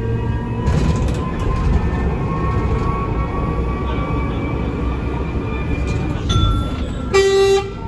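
Train running, with a steady low rumble and a faint motor whine that rises slowly in pitch in the first seconds as it gathers speed. Near the end a short, loud pitched tone sounds, like a horn or signal.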